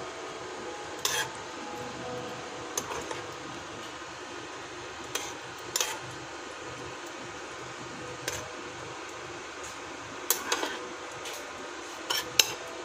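Metal spoon stirring wet bangus (milkfish) sisig in a frying pan, clinking and scraping against the pan in short, irregular taps over a steady low hiss.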